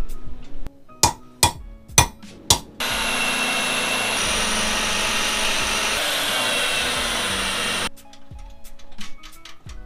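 Bench pillar drill boring into a metal part: a steady running noise with a high squeal from the bit cutting metal, lasting about five seconds and stopping suddenly. It is preceded by a few sharp knocks.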